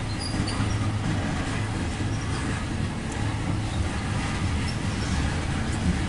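CSX coal train hopper cars rolling past close by: a steady low rumble of steel wheels on the rails.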